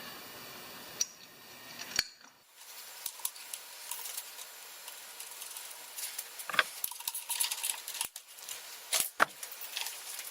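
Scattered light metallic clicks and clinks of small engine parts and hand tools being handled, with a few sharper knocks: bench work on a small mower engine's carburetor.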